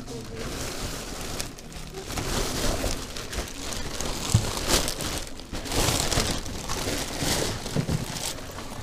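Clear plastic bags crinkling and used shoes knocking and scraping against each other as several hands rummage through a heap of them. It is a continuous rustle with many small clacks, busier from about two seconds in.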